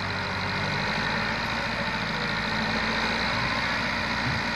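Massey Ferguson 240's three-cylinder diesel engine running steadily at idle, in gear and hitched to a fully loaded trolley, just before it is opened up to pull away.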